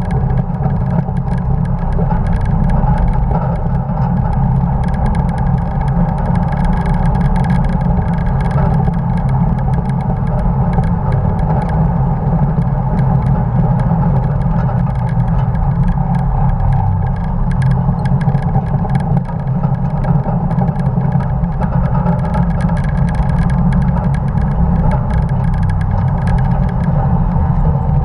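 1950 Dodge pickup truck running steadily at racing speed on track, its engine under load with road and wind noise, heard from a camera mounted on the truck.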